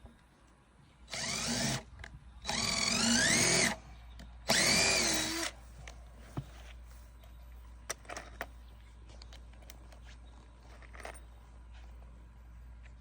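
DeWalt drill driving screws into wood in three bursts, its motor pitch rising and falling with the trigger, followed by a few faint clicks.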